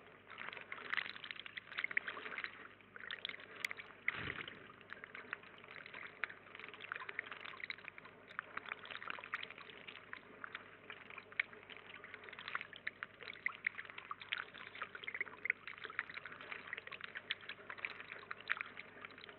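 Thin stream of water pouring and trickling into a shallow pond, a steady crackling splash. A brief low thump about four seconds in.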